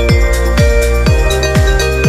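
Upbeat electronic dance music: a kick drum on every beat, about two a second, under sustained synth chords.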